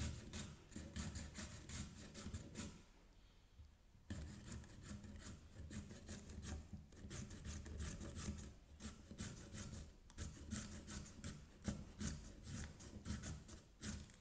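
A carrot scraped back and forth over a handheld stainless steel julienne shredder, making a quick run of rasping strokes at about four a second. The strokes pause for about a second, roughly three seconds in.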